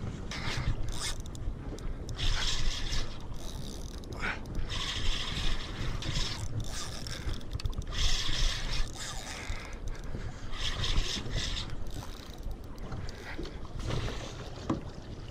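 Wind buffeting the microphone over choppy water around a small boat, with a hiss that swells and fades every second or two.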